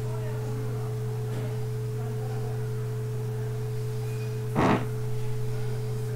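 Steady low electrical hum with a faint higher tone over it, with one brief knock about four and a half seconds in.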